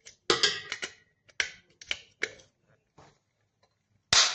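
Sharp clicks and knocks from a glass light-switch cover panel being handled against the switch, with one louder snap about four seconds in.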